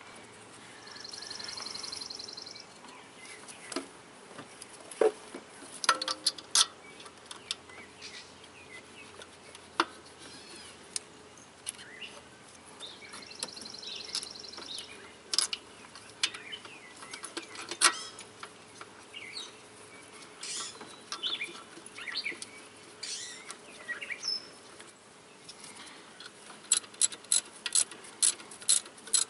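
Metal tools clinking and knocking on engine parts as a power steering pump is bolted into place, ending in a quick, regular run of ratchet clicks as the bolts are tightened. A high bird trill sounds twice.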